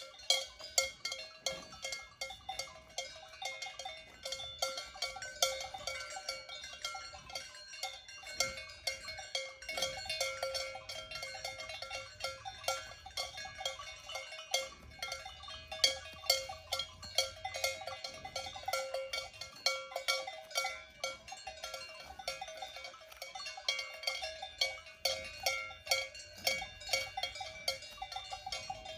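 Several cowbells on grazing cows clanking irregularly, bells of different pitches ringing and overlapping one another without a break.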